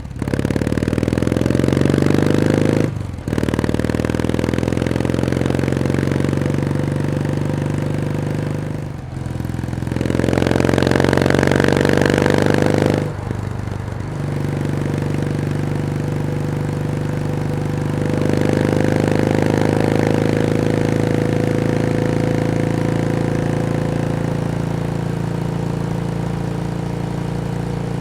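Kawasaki W1S vertical-twin motorcycle engine accelerating through the gears: the note climbs in pitch, drops briefly at three gear changes, then settles into a steady cruise for the second half.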